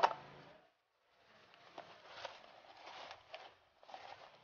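Packaging being handled on a wooden table: a sharp click as a plastic-cased lens filter box is set down, then after a pause faint rustling and scraping of a cardboard parcel as the lens box is taken out of it.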